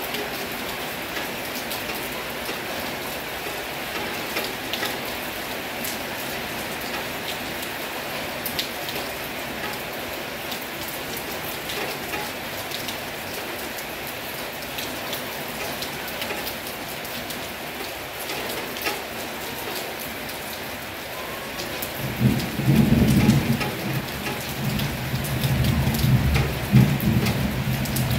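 Heavy rain falling steadily, with individual drops ticking sharply on a nearby surface. About three-quarters of the way through, a long low rumble of thunder sets in and stays louder than the rain.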